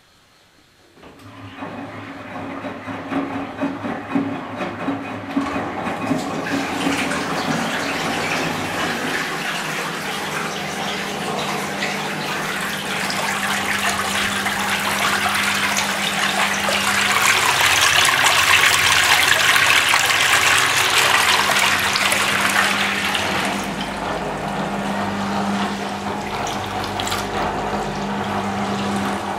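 Zanussi Super Jetsystem washing machine's drain pump starting about a second in with a steady hum, pumping the rinse water out through the drain hose, which splashes into a utility sink. The splashing is loudest in the middle.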